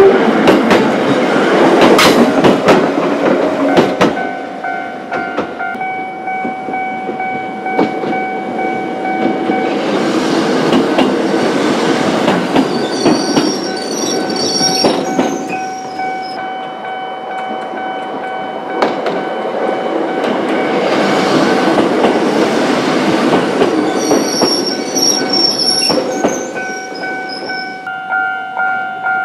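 Choshi Electric Railway trains passing level crossings: wheels clattering over the rail joints, with a high wheel squeal at times. The crossing alarm bells ring steadily through it all.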